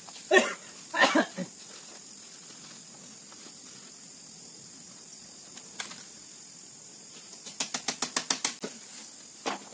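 Steady high buzz of forest insects, with two short pitched calls in the first second and a half. Near the end comes a quick run of sharp knocks and rattles from the bamboo slats of the hut wall being worked.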